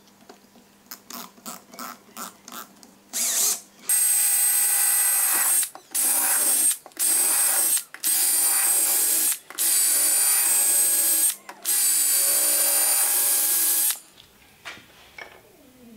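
A hand drill's chuck clicks several times as it is tightened on a wooden stick. The drill then runs in about six stretches of one to two seconds, with a high whine, spinning the square hardwood stock down through a hole in a metal dowel plate to turn it into a round dowel.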